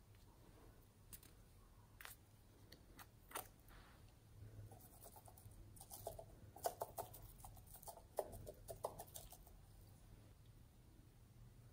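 Small plastic container handled with a few light clicks, then shaken over the slime in a quick flurry of small clicks and rattles for a few seconds as silver sequins pour out.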